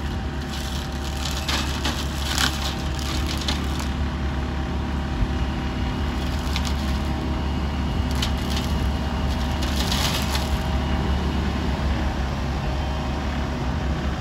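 McConnell 8085TT flail hedge cutter on a Fendt 716 Vario tractor running with a steady drone, with bursts of cracking and splintering as the flail head shreds hedge branches. The crackling comes in the first few seconds and again about eight to ten seconds in.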